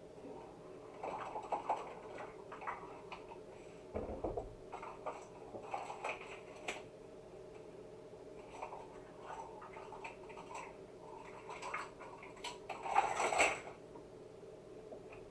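Small kitchen utensils and containers being handled and set down on a counter: scattered light clinks and knocks, with a louder clatter near the end.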